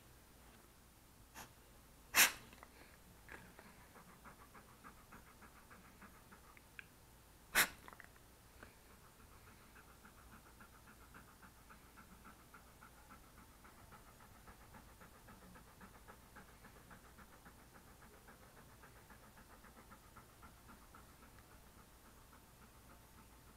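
Golden retriever panting steadily and quickly right at the microphone, with two short, sharp, loud noises about five seconds apart near the start.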